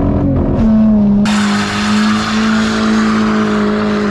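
Car engine held at steady high revs while the tyres spin and squeal in a burnout. The revs settle about half a second in, and a loud tyre squeal starts abruptly about a second later.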